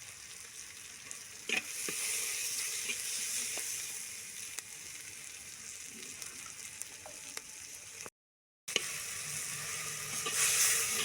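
Onion, garlic, chilli and tomato sizzling in mustard oil in a clay pot, stirred, with scattered light knocks of the spoon. The sound cuts out for about half a second past two-thirds through, then the sizzling comes back louder near the end.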